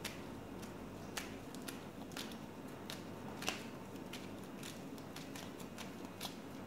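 Scattered light clicks and taps of playing cards being handled on a table, about one or two a second, the loudest about three and a half seconds in, over a faint steady hum.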